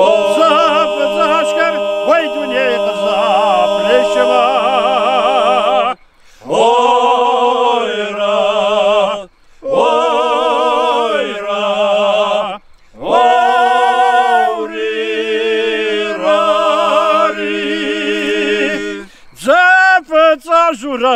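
Adyghe (Circassian) men's ensemble singing an old Nart song a cappella: the group holds a steady low drone while a lead voice sings long, wavering held notes above it. The singing comes in long phrases with brief breaks for breath.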